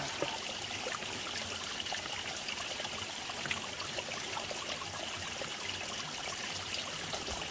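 Spring water running from a pipe into a plastic water bottle as it fills, a steady trickle and splash.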